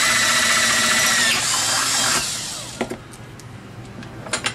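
Electric drill with a 5/16-inch bit boring through a metal wheel-mount bar, its motor running at a steady high whine, then winding down a little over two seconds in. A few sharp clicks follow near the end.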